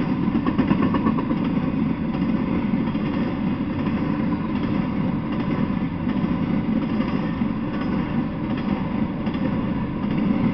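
Freight train rolling past at steady speed: a continuous rumbling of steel wheels on the rails as the cars go by.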